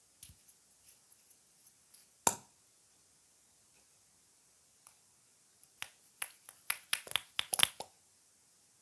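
Slime being worked by hand, giving sharp clicks and pops: a few light ones, a loud pop a little over two seconds in, then a quick run of louder pops near the end.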